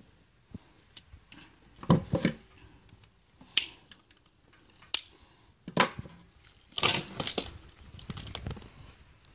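Hoof trimming shears clipping through a goat's hoof wall: a string of sharp crunching snips at irregular intervals, loudest about two and seven seconds in.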